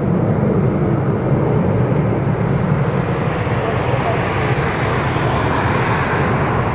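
Airbus A320 airliner's jet engines running as it rolls on the ground, a steady rushing noise that grows somewhat brighter after about three seconds.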